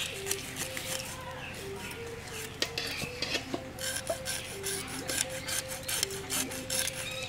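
A knife blade scraping the scales off a whole tilapia held on a wooden block: repeated quick rasping strokes, coming faster in the second half.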